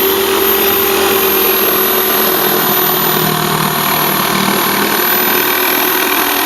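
Electric jigsaw running steadily as its blade saws through a side panel, a constant motor hum with a high whine over the rasp of the cut.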